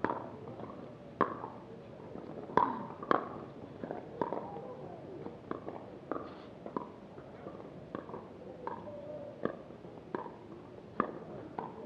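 Pickleball rally: paddles striking the hollow plastic ball back and forth, a sharp pop every half second to second, the loudest a little over a second in and around two and a half to three seconds in.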